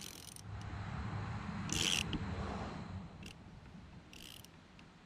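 DeWalt ratchet clicking in four short bursts, loudest about two seconds in, as it turns a puller against a rear wiper arm seized by corrosion onto its pivot shaft. A low rubbing rumble from the tool working runs under the clicks.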